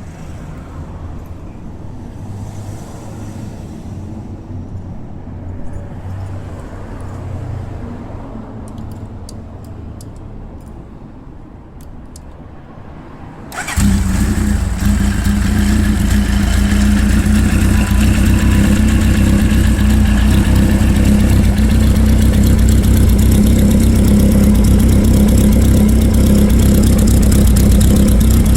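An engine fitted with a straight-pipe (Kintaro) silencer muffler starts suddenly about halfway through, then settles into a loud, steady idle with a deep exhaust hum. Before it starts there is only a low rumble and a few faint clicks.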